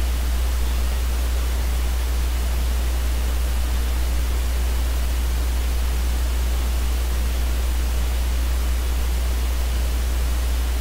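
Steady low electrical hum under an even hiss, with no other sound: the noise floor of the recording microphone.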